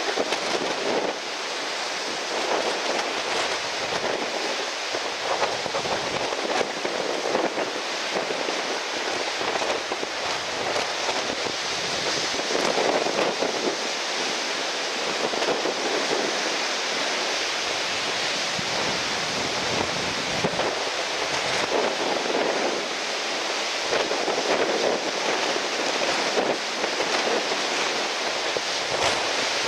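Strong wind rushing over the microphone with surf breaking, a steady noise that swells and eases with the gusts and waves.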